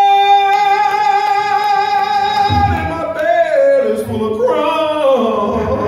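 Live blues band: a long, steady high note is held for the first two and a half seconds. The band then comes back in with drums and bass under a wavering, bending sung line.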